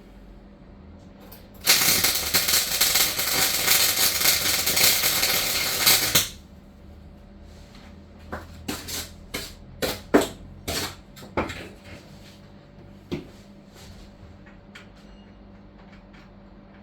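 MIG welder laying a weld on van floor steel: a loud, dense crackle that starts about two seconds in and stops sharply some four seconds later. This is followed by a string of separate metallic clicks and knocks.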